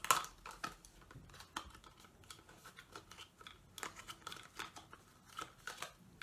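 Small plastic makeup palette cases being handled and picked up: irregular light clicks, taps and rustling throughout.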